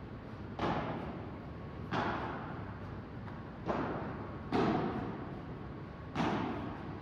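Padel ball hits in a rally: five sharp knocks at uneven intervals of one to two seconds, as the ball is struck by the rackets and bounces off the court and its glass walls. Each knock rings on in the echo of a large indoor hall.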